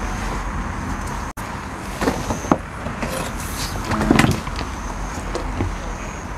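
Steady low background rumble with scattered knocks, clicks and rustling from an angler handling his rod and chair while playing a hooked fish. The loudest scuffle comes about four seconds in.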